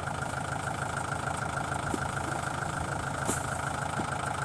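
Tractor diesel engine idling steadily, with one short click about three seconds in.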